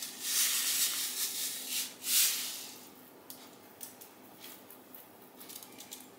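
Plastic packet of sesame seeds crinkling and rustling as it is shaken and seeds are tipped into a hand, loudest in the first two seconds. Then it goes quieter, with a few faint light ticks as the seeds are sprinkled by hand.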